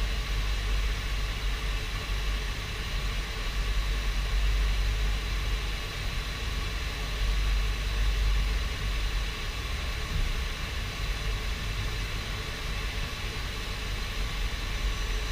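Steady mechanical hum and hiss with a strong low rumble: an UP Plus 2 3D printer running its nozzle height test.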